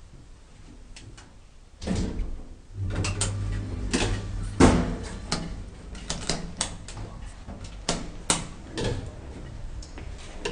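Schindler hydraulic elevator's door and car mechanism clicking and knocking repeatedly, with a steady low hum for about two seconds a little before the middle.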